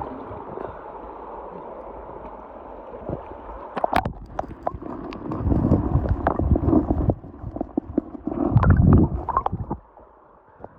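Water sloshing and gurgling, with a run of clicks, knocks and rough splashing bursts from about four seconds in that stops suddenly near the end.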